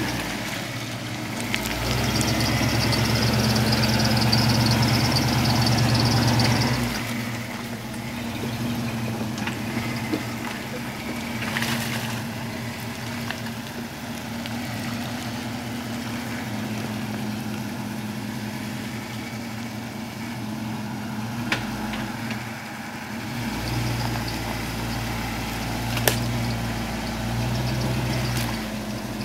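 Lifted Ford F-series pickup's engine working at low speed as the truck crawls over deep mud ruts. It revs up and runs louder for several seconds near the start and again near the end, and drops back to a steady idle in between. A few brief sharp knocks come through in the middle and near the end.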